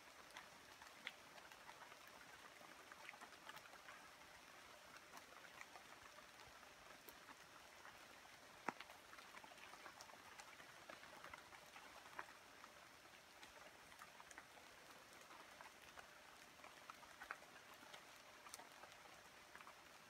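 Faint light rain and drips falling on rainforest leaves: a soft steady hiss with scattered small drop ticks, and one sharper tick a little before halfway.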